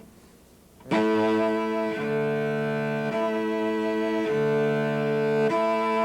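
Cello playing a slow exercise of sustained bowed notes, starting about a second in and changing pitch about once a second.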